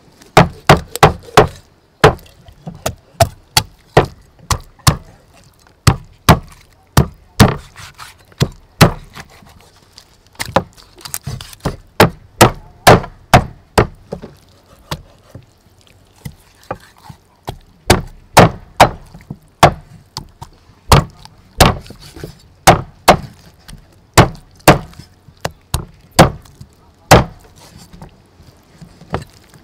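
Meat cleaver chopping a whole chicken through the bone on a thick wooden chopping block: sharp, irregular chops, one or two a second, with a lull of a few seconds about halfway through.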